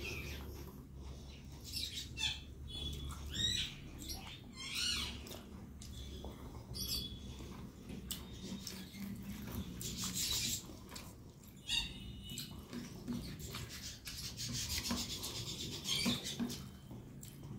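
Close-miked chewing and mouth sounds of a person eating rice and curry by hand, with fingers mixing and squishing rice on a plate. It comes as irregular soft clicks and rubs with a few brief squeaky sounds, and no speech.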